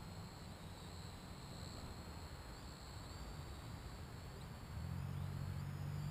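Propel Cloud Rider toy quadcopter's small motors and propellers running in flight: a steady high whine that wavers in pitch as the throttle changes, over a low hum that grows louder again about five seconds in.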